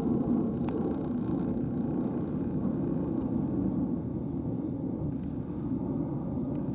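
Steady low outdoor rumble, with a couple of faint clicks.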